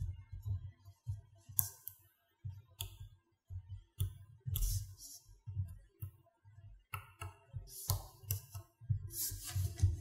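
Small magnetic balls clicking and crackling in short bursts as fingers press and adjust a figure built from them, with dull low thuds of handling between the clicks.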